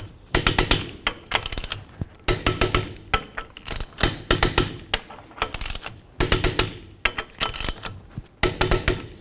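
Torque wrench clicking in bursts of rapid clicks about once a second as the wheel's 19 mm lug nuts are torqued to 100 foot-pounds.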